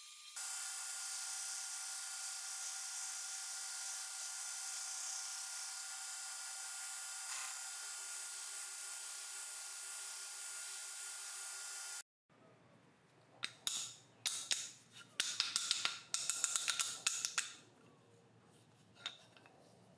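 A workshop power tool runs steadily with a hissing whine while micarta handle scales are cut and ground, then stops abruptly. A quick run of short rasping strokes follows, the scales being sanded by hand.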